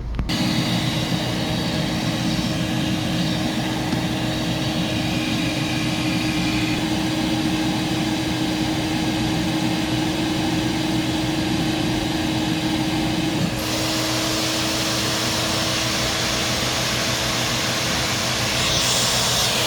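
Vintage Hoover Portable 2110 vacuum cleaner switched on, its motor starting suddenly and then running steadily with a humming tone and rushing air. About two-thirds through, the hum drops slightly in pitch and the hiss thins. Near the end the high hiss gets louder.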